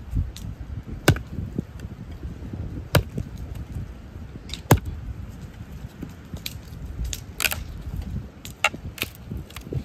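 Axe chopping a dry wooden branch lying on the ground: four sharp, heavy strikes in the first five seconds, the last the loudest. After that come several lighter knocks and cracks as the cut sticks are handled.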